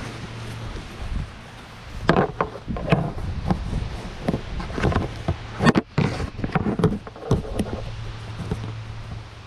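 A run of irregular knocks and scrapes, a few a second, starting about two seconds in and dying away near the end, over a low steady hum.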